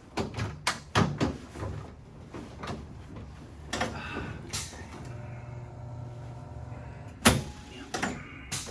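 A person rolling over onto their back on a padded chiropractic table: knocks and rustles as the body and table shift. A steady low hum lasts about two seconds past the middle, and two sharp knocks come near the end.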